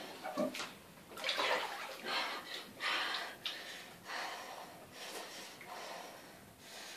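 Ice-cold bath water sloshing as a person sits down in the tub, with a string of quick, hissing breaths from the cold shock, roughly one a second, growing fainter toward the end.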